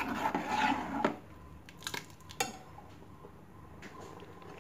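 A metal ladle stirring and mashing a thick porridge of cooked wheat and lentils in a metal pot, scraping along the pot and clinking against its sides. The stirring is busiest in the first second; after that come a few separate knocks, around one and two seconds in and again near the end.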